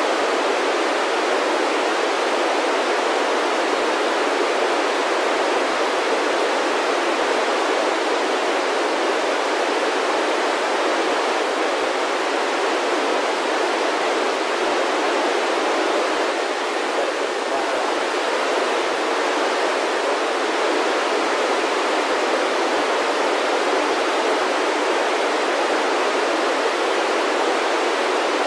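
Steady FM radio static: the hiss of a handheld VHF receiver with no signal on the ISS downlink frequency.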